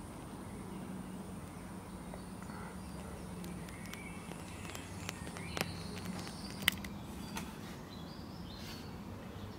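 Quiet background with a faint steady hum and a few light clicks or taps near the middle, the sharpest about seven seconds in.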